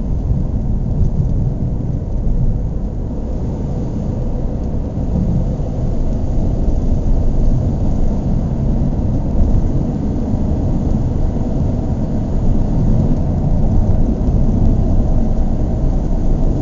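Car engine idling: a steady low rumble that holds fairly even throughout.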